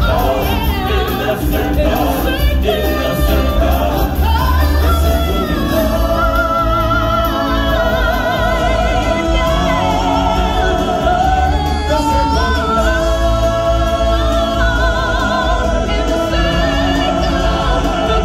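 Stage-show song: several singers holding long notes with vibrato over loud amplified backing music with deep bass.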